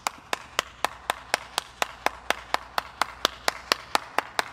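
One person clapping hands at a steady, even pace, about four claps a second.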